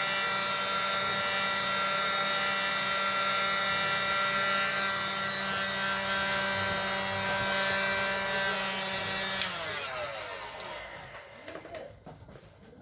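Heat gun blowing hot air to soften the adhesive under a phone screen: a steady motor whine with a rush of air. About nine and a half seconds in it is switched off and the whine falls in pitch as the fan winds down, leaving a few light handling sounds.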